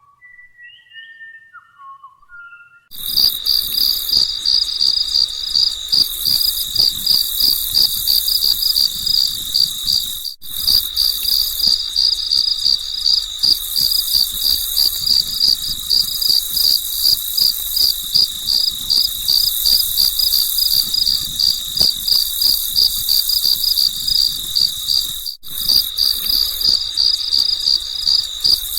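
Crickets chirping loudly in a fast, steady, regular pulse, starting about three seconds in after a few faint whistled chirps; the chirping breaks off for an instant twice.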